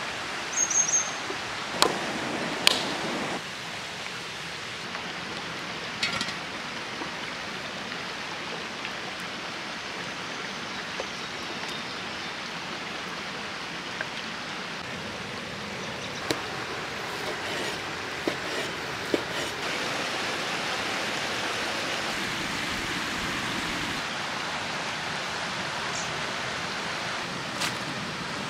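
A stream flowing steadily over rocks, with a few sharp knocks and clicks from handling food and utensils, the loudest in the first three seconds. A brief high chirp comes just under a second in.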